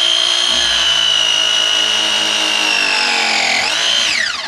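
Electric pipe press tool pressing a copper press fitting onto pipe. Its motor whines steadily, slowly dropping in pitch as the jaws close under load, then rises briefly and winds down about four seconds in as the press cycle finishes.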